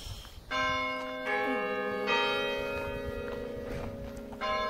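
Church bells ringing in the tower, with several strokes about a second apart and another near the end, each leaving a long ringing tone that overlaps the next.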